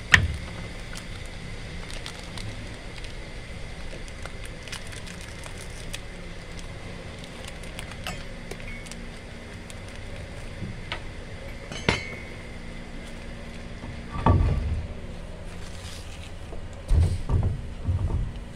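Metal tools and parts clinking and knocking during work on a vehicle's wheel hub and brakes, with sharp knocks at the start and about 12 seconds in and heavier thuds near the end, over a steady low hum.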